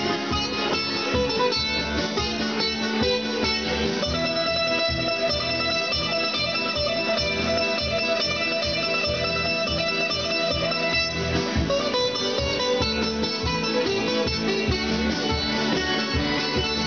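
Live band playing instrumental music: guitar and other plucked strings over an electric keyboard, with a steady low beat.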